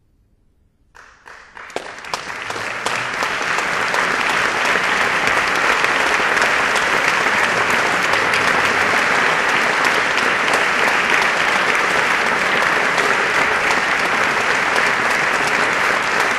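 Audience applause. It begins about a second in with a few scattered claps, swells over the next few seconds into full, steady clapping, and holds.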